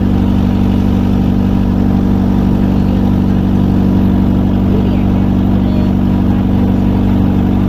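Motorboat engine running steadily at an even speed, with no revving.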